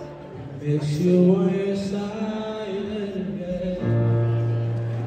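A man singing to his own grand piano accompaniment, a low bass note coming in just before the end.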